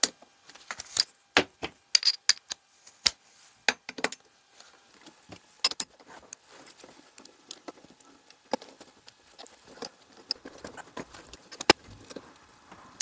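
Socket wrench undoing the rocker-assembly bolts on a 125cc pushrod motorcycle engine's cylinder head: a run of irregular sharp metallic clicks and clinks of the tool on the bolts.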